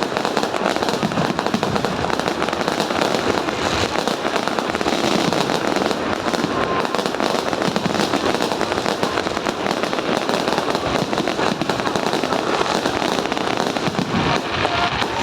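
Fireworks display going off in a dense, continuous barrage: rapid crackling and popping with no gaps.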